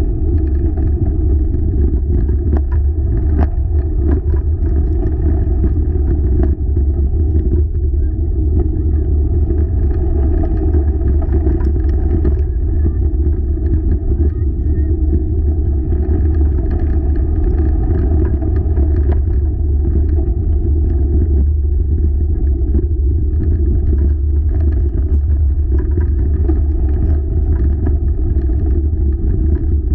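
Four-dog wheeled rig rolling along a trail: a loud, steady low rumble with scattered light knocks.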